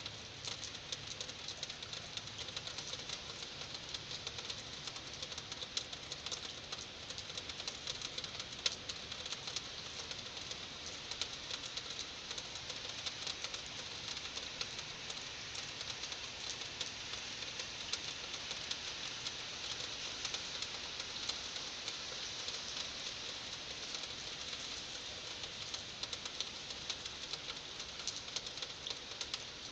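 Heavy rain falling steadily, a dense hiss and patter of drops, with one sharper drop tick about nine seconds in.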